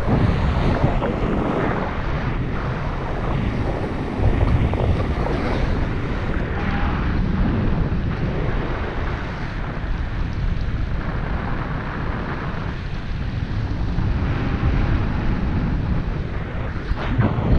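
Wind rushing over an action camera's microphone during a tandem paraglider flight: a loud, steady rumbling rush of air that swells and eases, with a stronger surge about four seconds in and again near the end.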